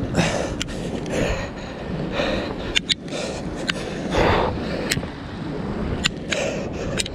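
An angler breathing hard from the effort of fighting a big shark, a heavy breath about every second, with scattered sharp clicks.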